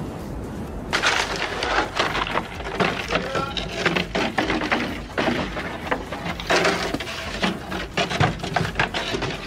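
Hurried footsteps crunching and scuffing on snow and steps, a fast irregular clatter starting about a second in.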